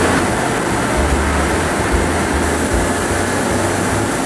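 Steady rush of air in a powder-coating booth: the powder spray gun's compressed air and the booth's extraction running without a break.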